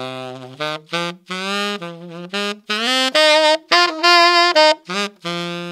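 Unaccompanied tenor saxophone playing a short bluesy blues-scale lick in G minor (tenor key): a phrase of a dozen or so separate notes, some short and some held, a few bent or scooped up into pitch. The loudest notes come in the middle, and the last note is held long.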